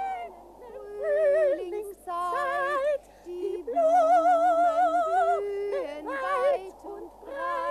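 Two cartoon goose voices singing a wobbly duet with heavy vibrato, one voice high and one low, in long held notes with short breaks between phrases: a comically awful song.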